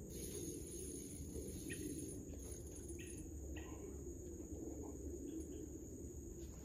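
Quiet riverside ambience: a steady high-pitched insect drone over a low background rumble, with a few faint short chirps.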